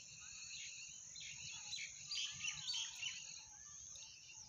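Faint outdoor background: scattered bird chirps over a steady high hiss.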